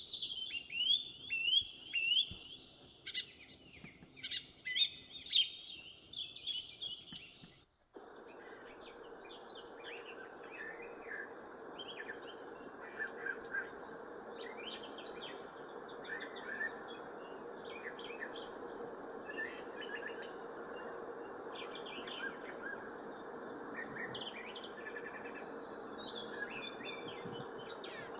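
House finches singing a loud, jumbled warble of quick chirps that stops abruptly about eight seconds in. It gives way to a steady low background hum with fainter, scattered bird chirps over it.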